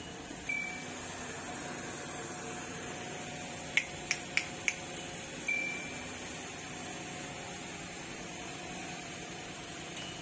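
A short electronic chime rings twice, about five seconds apart, and a quick run of five sharp clicks comes near the middle. Under them is the faint steady hum of the Suzuki Every van's idling engine, heard from inside the cabin.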